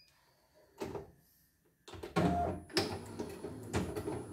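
CNY E900 embroidery machine starting up about two seconds in and stitching at its slow speed, the needle mechanism clicking in a quick, even rhythm.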